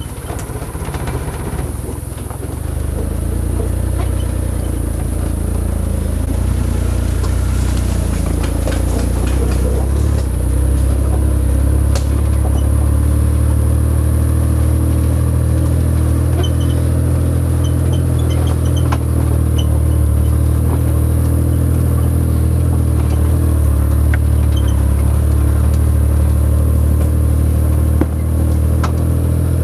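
A motor vehicle's engine running steadily at idle, building up over the first two or three seconds and then holding even, with a few faint clicks over it.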